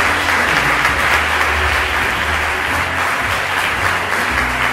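Theatre audience applauding steadily at a curtain call, with music and its low bass notes playing underneath.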